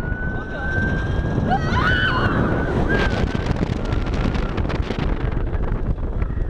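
Wind rushing over the microphone of a roller coaster's front row as the train travels at speed, with riders screaming: one long held scream in the first second or so, then a few shorter cries about two seconds in.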